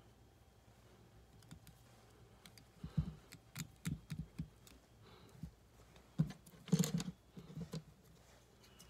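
Scattered light clicks and taps from hands and tools working a fly at a fly-tying vise, with a run of sharper clicks about three seconds in and another around six to seven seconds.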